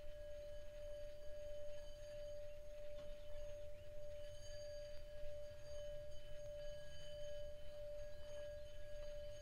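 Small Tibetan singing bowl sung by running a mallet around its rim: one steady held ringing tone with fainter higher overtones above it.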